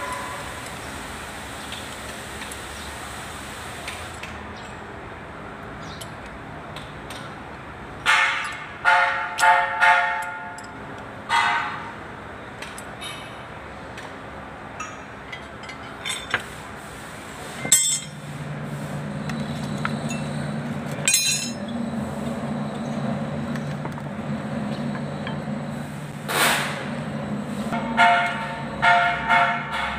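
Ringing metal clinks from a spanner tapping on a Kubota L2201 tractor's front wheel hub as the new bearing and seal go back in. There is a handful of strikes about a third of the way in and a quick run of them near the end, with a steady low hum coming in about halfway.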